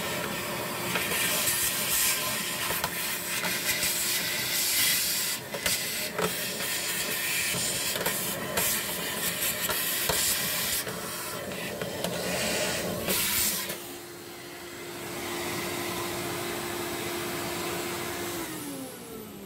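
Vacuum cleaner running with its bare hose sucking dirt out of another vacuum cleaner's dust compartment: a steady motor hum under a loud rushing hiss, with scattered clicks and rattles of debris going up the hose. Near the end the cleaner is switched off and the motor's pitch falls as it runs down.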